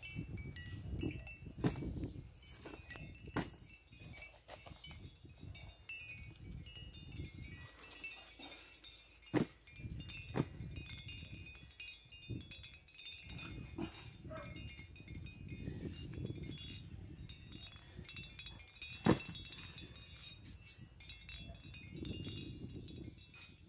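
Bunches of bananas being handled and set down on a woven bamboo tray: soft rustling and handling with several sharper knocks, over a low rumble. Faint high-pitched chirps run in the background.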